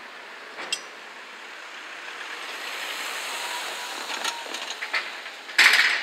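A car drives past close by, its tyre noise on the road swelling and fading. There are a few light knocks, and near the end comes a short, loud clatter.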